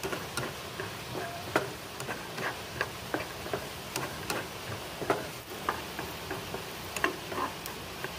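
Spatula stirring pea eggplants, shallots and garlic around a nonstick frying pan: irregular light taps and clicks of the spatula and the small round eggplants against the pan, several a second, over a steady hiss.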